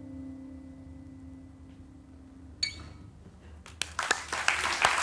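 The last notes of a solo steel-string acoustic guitar piece ringing out and fading away. A short sharp sound comes about halfway through, and the audience starts to clap about four seconds in, the applause quickly filling in.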